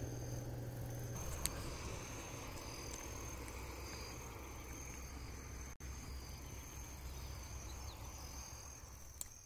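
Quiet outdoor ambience: a high insect trill that starts and stops repeatedly over a steady low background rush.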